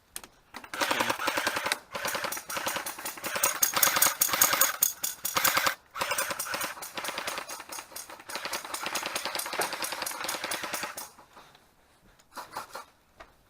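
Airsoft gun firing on full auto: long strings of rapid shots, broken by short pauses about two seconds and about six seconds in, stopping about eleven seconds in.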